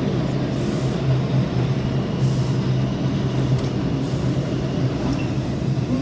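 New York City subway train heard from inside the car: a steady low hum over an even rumble.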